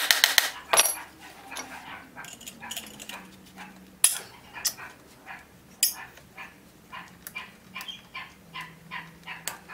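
A dog barking over and over, short barks about one or two a second, with a couple of sharp metal clinks from hand tools about four and six seconds in.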